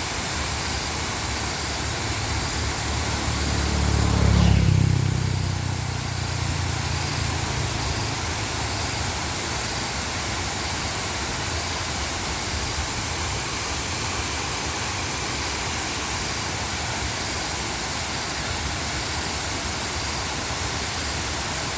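Steady rush of a waterfall. A low drone with a few steady pitches swells in about two seconds in, peaks around four seconds and fades out by eight seconds.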